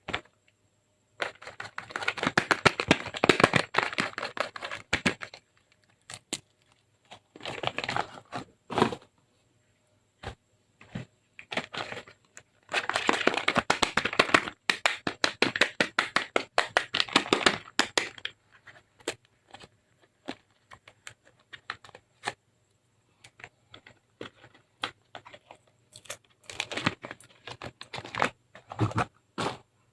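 Bar soap cracking and crumbling: dense runs of crackling that come in several bursts of a few seconds each, with single sharp cracks in between.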